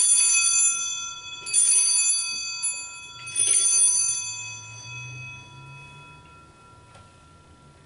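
Altar bells rung three times at the elevation of the host, the sign of the consecration at Mass. Each shake is a bright jangle of several small bells, about a second and a half apart, and the ringing fades out over a few seconds after the third.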